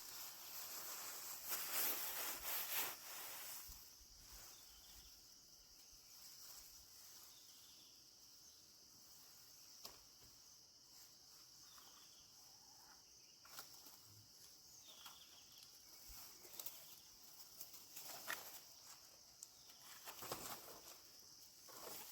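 Insects in the forest, a faint, steady high-pitched drone, with scattered light rustles and clicks.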